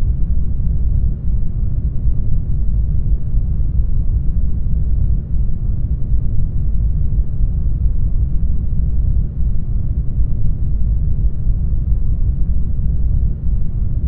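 Isolation-tank ambience: a steady, deep, muffled rumbling noise with almost nothing high in it.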